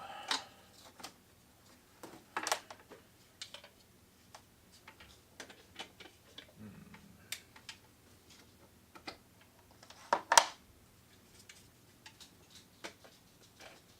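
Irregular light clicks and taps of small plastic objects being handled, with one sharper click about ten seconds in.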